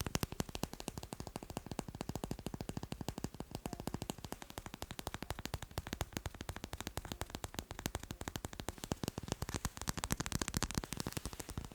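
Fast tapping on macarons: a rapid, unbroken run of light taps, many a second.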